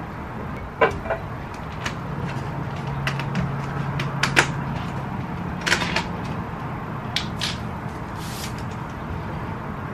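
Scattered light clicks and taps of tableware on a glass table: a glass bottle set down and a plastic takeaway bowl's lid handled and pulled off, over a steady low hum.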